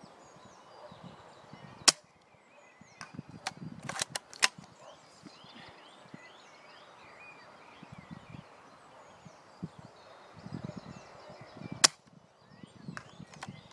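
Two shots from a Novritsch SSG24 spring-powered bolt-action airsoft sniper rifle, each a single sharp crack, about ten seconds apart. A few lighter clicks follow a couple of seconds after the first shot.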